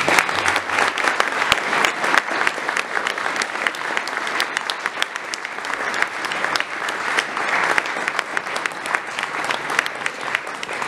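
Audience applauding: many hands clapping in a dense, steady patter that keeps going throughout.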